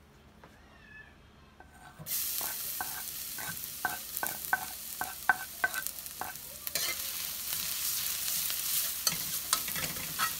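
Minced garlic sizzling in hot cooking oil in a wok. The sizzle starts suddenly about two seconds in and grows louder near seven seconds, with repeated sharp metallic clinks and scrapes of a knife and utensil against the wok as the garlic is pushed in and stirred.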